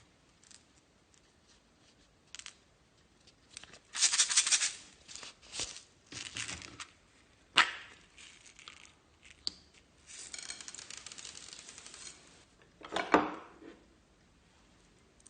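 Slime being handled and mixed: irregular sticky crackles and rustles with a few sharp snaps, the loudest about halfway through and near the end, and a steady fine crackle for about two seconds after the middle.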